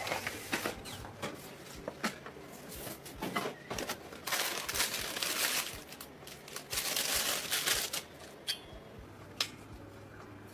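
Handling noise: crinkling and rustling with scattered sharp clicks and taps, with two longer rustling stretches around the middle.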